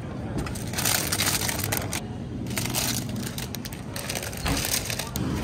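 Plastic bags of packaged salad crinkling as they are handled on the shelf, in three crackly bursts.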